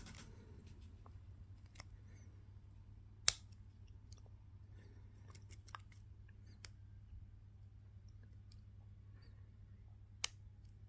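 Lock pick and tension wrench working the pins of a steel Archer padlock: faint scattered clicks and scrapes, with two sharper clicks about three seconds in and near the end.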